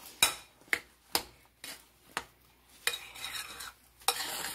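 A spoon clinking against a glass mixing bowl, about five sharp taps in the first couple of seconds, then softer scraping as it folds thick, partly frozen whipped topping into sweetened condensed milk.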